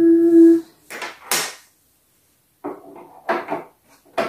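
Hard plastic dollhouse fence pieces being handled and pressed into place against the plastic house: short scraping and rattling sounds, with a sharp click near the end. A brief hummed 'hmm' opens it.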